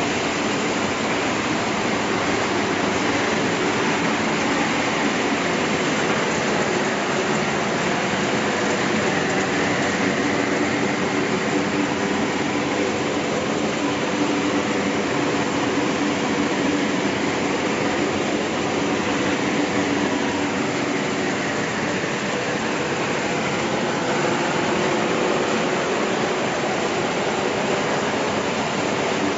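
Copper-aluminium radiator recycling machinery running: a loud, steady mechanical din with a constant hum underneath.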